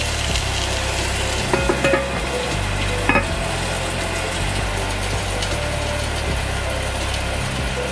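Salmon fillets sizzling in hot oil in a cast-iron Staub braiser, a steady frying hiss. A few sharp clinks against the pan come about one and a half to two seconds in and again near three seconds.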